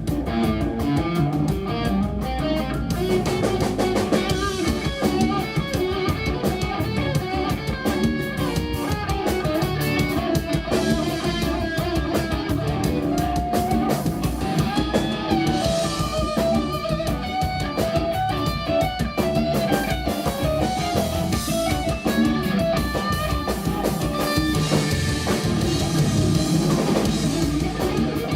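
Live instrumental rock band playing: electric guitar lines over bass and drum kit, continuous throughout.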